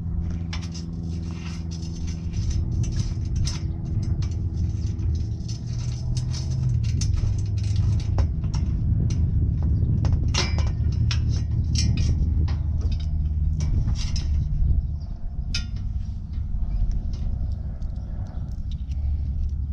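Scattered metal clicks and clinks from a hand ratchet and bolts being worked on a chrome grille guard, over a steady low rumble.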